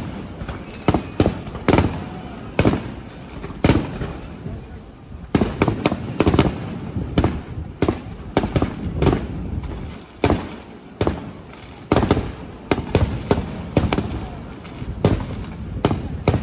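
A fireworks display: shells bursting in quick, irregular succession, one or two sharp bangs a second, each trailing off briefly.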